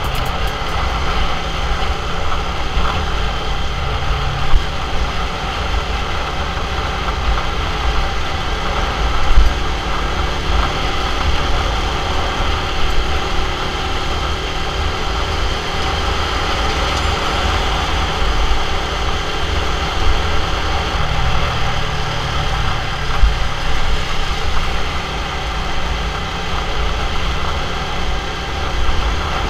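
Motorcycle engine running steadily while riding along a road, with a low wind rumble on the microphone and a couple of brief louder knocks.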